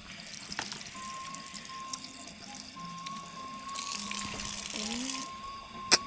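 Slurping and sucking as cooked freshwater snails (tutut) are eaten from the shell, with a hissing slurp about four seconds in, over quiet background music with a long held high note. A sharp click near the end.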